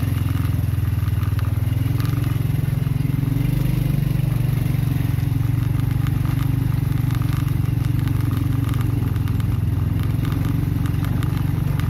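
Small motorbike engine running steadily at low speed, with the tyres and bike rattling and crackling over a rough, loose-gravel dirt track.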